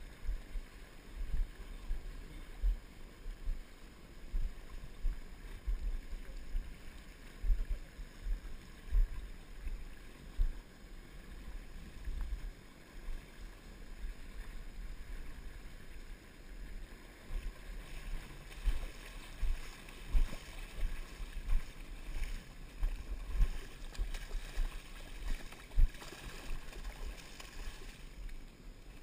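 River water sloshing around a wading angler's legs, heard muffled through a GoPro's waterproof housing, with many irregular low thumps and a steady rushing hiss.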